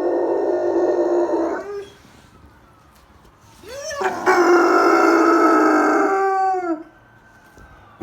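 German shepherd howling: a long steady howl that breaks off about two seconds in, then after a pause a second howl that rises into its note and drops in pitch as it trails off near the end.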